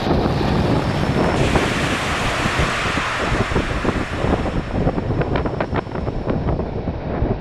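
Strong wind buffeting the microphone in a continuous loud rush, with aircraft engine noise beneath it. The sound shifts about a second and a half in, and short crackling gusts hit the microphone in the second half.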